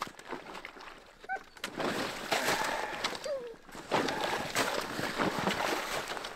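Snowshoes stepping through wet slush on lake ice, with a loaded sled dragged behind on ropes, sloshing and splashing in uneven surges.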